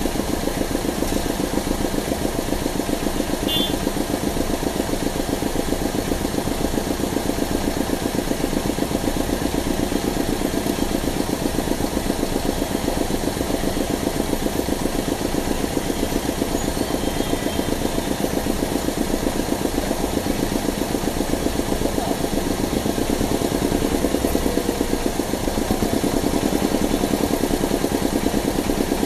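Car engine idling with an even, steady pulse, heard from inside the cabin of a car stopped in traffic.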